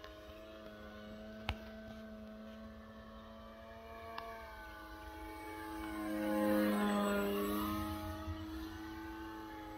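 Electric motor and propeller of a 48-inch Tiger Moth radio-controlled model biplane humming steadily in flight. It grows louder as the plane passes close, about six to seven seconds in, then fades again. A single faint click comes about a second and a half in.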